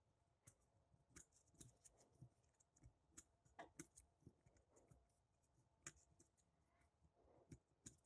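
Faint, irregular clicks from the number wheels of an Abus 160/40 combination padlock as they are turned a step at a time. A feeler-gauge shim sits between the wheels, probing for the third wheel's gate while the lock is decoded.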